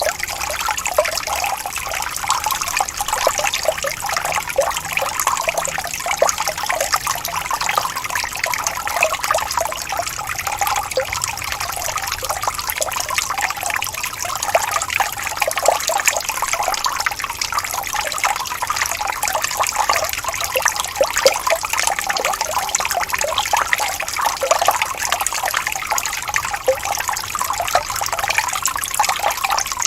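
Small waterfall: water trickling and splashing steadily, a dense bright patter with little low rumble.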